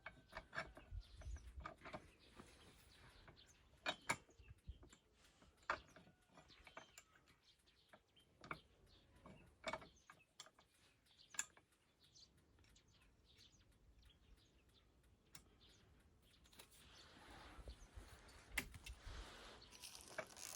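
Near silence broken by scattered faint clicks and knocks, with a faint rising hiss near the end.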